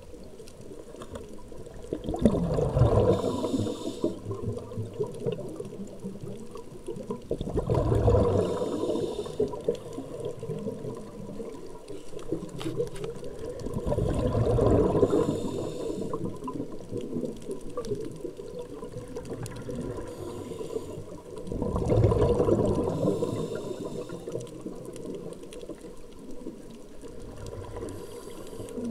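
Scuba diver breathing through a regulator underwater: four exhalations of bubbles gurgling out about every six to seven seconds, each with a short hiss, over steady water noise.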